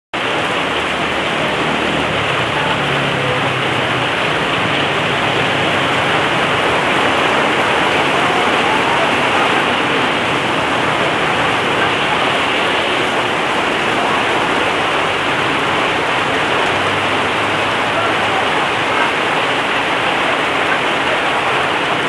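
Heavy rain pouring onto a paved road and its surroundings, a dense, steady hiss.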